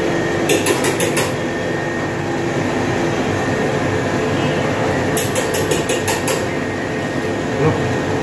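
Steady mechanical drone of commercial kitchen machinery with a faint hum in it. Two short runs of quick, sharp clicks come through it, about half a second in and again about five seconds in.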